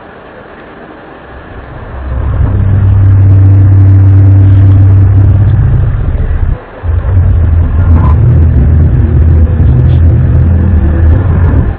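A loud, low, steady drone of unknown origin, of the kind circulated as a mysterious 'sky trumpet' sound. It swells in about two seconds in, breaks off briefly a little past the middle, then returns and cuts off abruptly just before the end.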